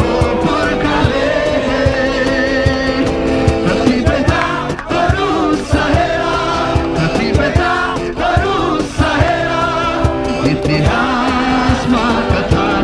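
A crowd singing together to two strummed acoustic guitars, with a steady percussion beat underneath.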